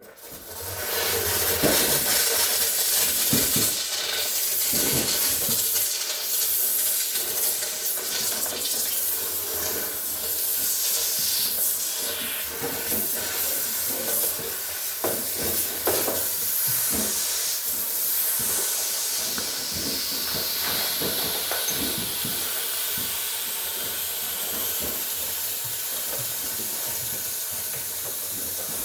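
Steady hissing jet of steam or spray, switched on abruptly, melting ice built up on a refrigerator's frozen freezer evaporator, with scattered light knocks.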